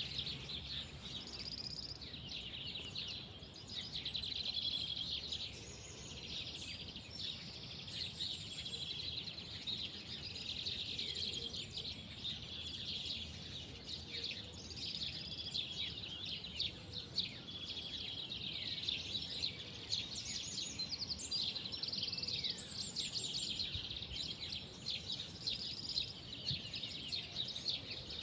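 Several small songbirds chirping and trilling without pause, many quick overlapping calls, over a faint low background rumble.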